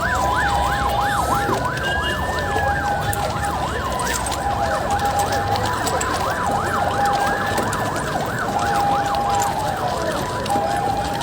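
Several emergency-vehicle sirens sounding at once: fast yelping sweeps, slow rising-and-falling wails, and a two-tone hi-lo alternating about once a second, over a low rumble.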